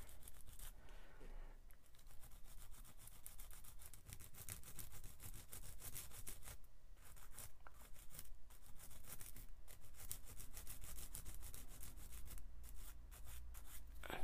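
Sanding stick rubbed rapidly back and forth over a small part clamped in pliers, a faint scratchy rasp of quick strokes with a few short pauses.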